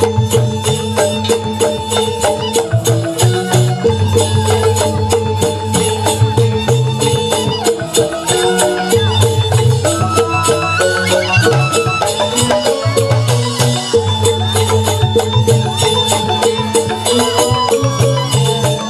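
Balinese bamboo gamelan playing a tabuh petegak, an instrumental piece: fast, dense interlocking strikes on bamboo-tube xylophones over a low bass pulse, with bamboo suling flutes carrying a melody above. The low bass drops out briefly twice, in the middle and again a little later.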